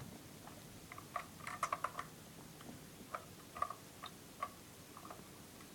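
Faint, scattered small clicks and taps of plastic objects being handled, with a quick run of clicks about a second in and single ticks after that.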